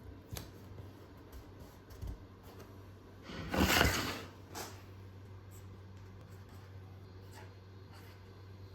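Workshop handling sounds over a low steady hum: a few small knocks, and a brief scraping or rubbing sound about three and a half seconds in, with a shorter one soon after.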